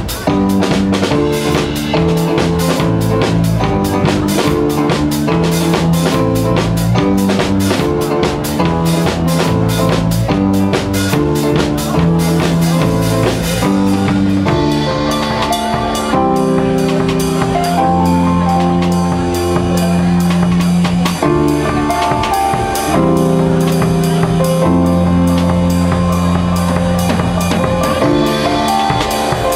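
Live band playing: drum kit with busy cymbal strokes over held keyboard chords and low bass notes. About halfway through the cymbals drop back and the held keyboard and bass chords carry the music.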